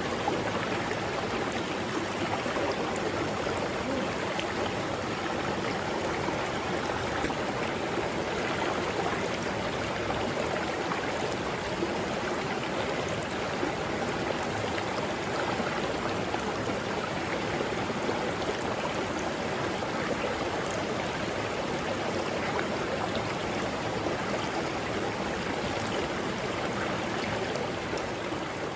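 Mountain river rushing steadily over rocks, a continuous even water noise, with faint short high chirps every few seconds.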